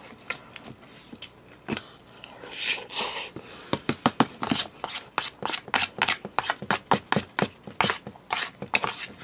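Close-up eating sounds: a brief scrape of a spoon in a plastic takeout container about two and a half seconds in, then chewing with many sharp, wet mouth clicks, several a second.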